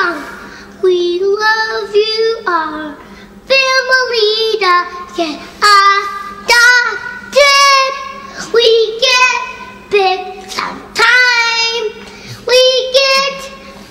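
A young child singing loudly in short phrases of high, held notes, with brief breaks between phrases.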